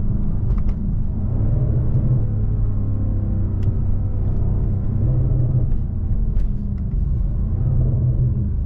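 BMW M550i's twin-turbo V8 running at low speed, heard inside the cabin over a steady low road rumble, its pitch rising gently a few times as the car pulls away.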